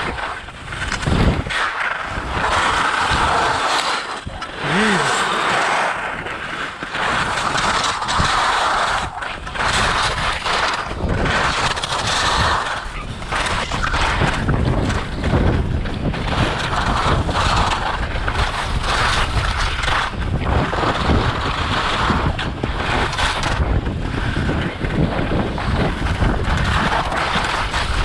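Skis scraping and chattering over icy, hard-packed snow on a downhill run, a continuous hiss that swells and fades with each turn, with wind buffeting the microphone.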